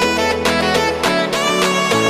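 Background music with quick, evenly repeated notes over held chords.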